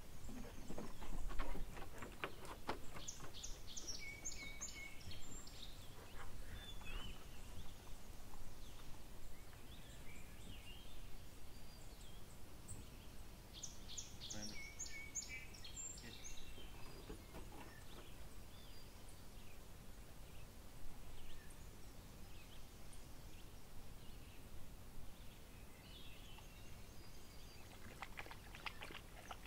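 Birds calling and singing in short scattered phrases of high chirps, over a steady outdoor background hiss.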